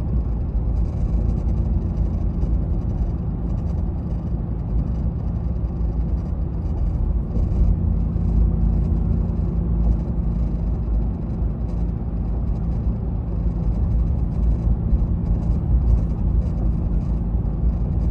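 Ram TRX pickup running: a steady low rumble with a few steady low hum tones in it.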